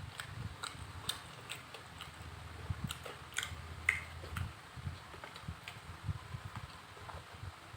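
Eating sounds: irregular small clicks and smacks of chewing, over a low steady rumble.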